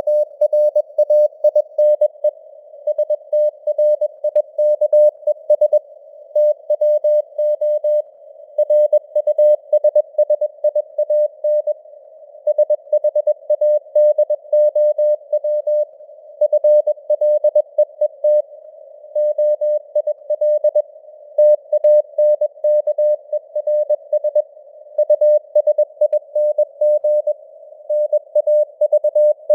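Morse code (CW) sent at 21 words per minute: a single mid-pitched tone keyed on and off in dots and dashes, spelling out news headlines. It sits in a narrow band of simulated radio hiss that fills the gaps between characters.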